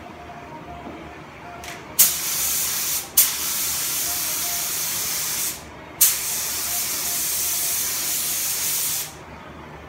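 Compressed-air paint spray gun hissing in three trigger pulls, the first about a second long and the next two two to three seconds each, each starting sharply, as paint is sprayed onto the car's interior. The first pull comes about two seconds in.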